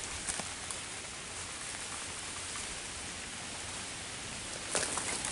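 Freezing rain falling steadily on icy leaf litter and bare branches: an even, fine hiss. A footstep crunches on the frozen leaves near the end.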